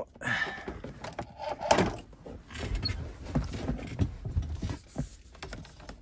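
Hard plastic dash switch panel of a Freightliner Cascadia being handled and pried loose: a string of small irregular clicks, knocks and rattles with rustling between them.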